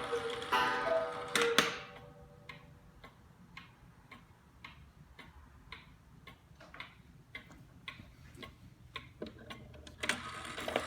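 Antique Black Forest cuckoo clock calling: its two cuckoo pipes sound a high and a low note, with a gong strike about a second and a half in. Then the movement ticks steadily, about twice a second, until another call starts near the end.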